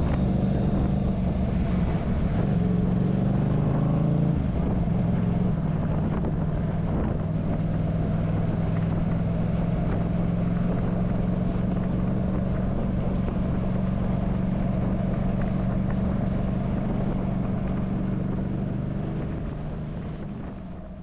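Yamaha MT-07 parallel-twin motorcycle engine running at a steady cruising speed with wind and road noise, heard from the rider's helmet camera. The engine note shifts in pitch in the first few seconds, then holds steady, and fades out near the end.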